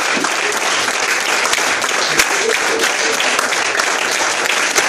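Crowd applauding: a dense, steady clatter of many hands clapping.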